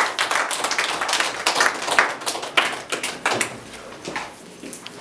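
Several people clapping their hands in quick, irregular claps that thin out and fade about four seconds in.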